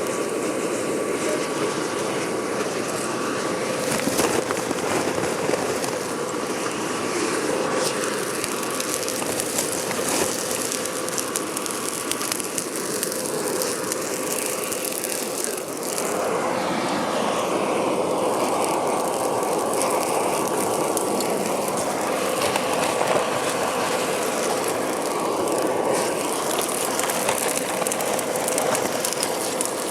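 Air blower running steadily, forcing air through the tuyere into a charcoal hearth furnace, a constant hum with the fire's blast underneath; the sound gets somewhat fuller about halfway through.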